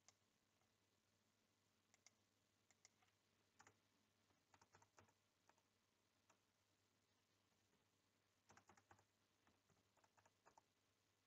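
Near silence, with faint scattered computer keyboard taps and mouse clicks, some in short clusters.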